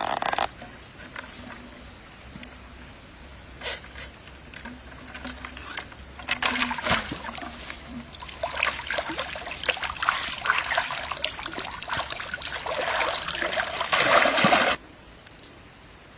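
Water splashing and trickling in irregular bursts, growing busier about six seconds in, then cutting off suddenly near the end.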